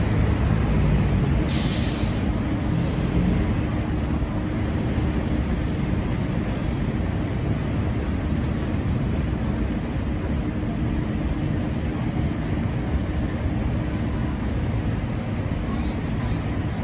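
New York City subway train running on an elevated steel line, a steady low rumble as it pulls away. There is a short hiss about one and a half seconds in.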